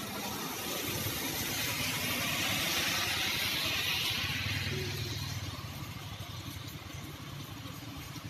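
A car passing on a wet road: the hiss of its tyres on water swells to a peak about three seconds in and then fades, with a low engine hum as it goes by. Steady rain hiss lies underneath.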